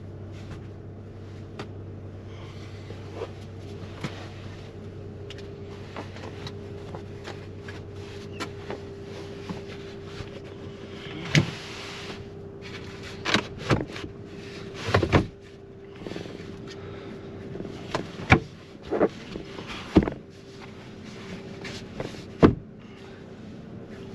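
Knocks, thuds and clatter of things being moved and put away inside a minivan, over a steady low hum. The knocks come more often and louder in the second half.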